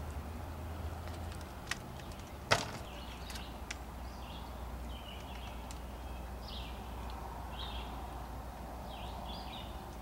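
Small birds chirping in short, high notes, on and off through the back two-thirds, over a low steady hum. A sharp click about two and a half seconds in is the loudest sound, with two fainter clicks around it.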